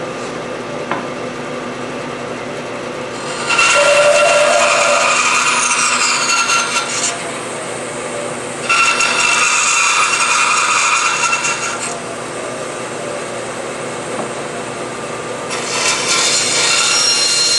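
Bandsaw running steadily and cutting into hard maple three times. Each cut is a louder stretch of a few seconds, starting about three and a half seconds in, near nine seconds and near the end, as the waste between the dovetails is sawn out.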